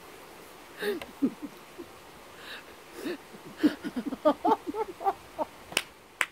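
A woman's breathy, hooting laughter in quick short bursts, then two sharp hand claps near the end.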